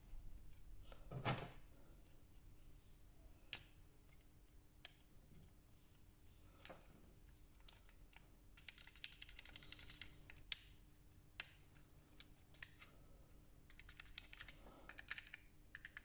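Small clicks and taps of hard plastic parts being handled and fitted on a Mercedes COMAND controller unit, with a louder knock about a second in and runs of faint rapid clicking near the middle and end.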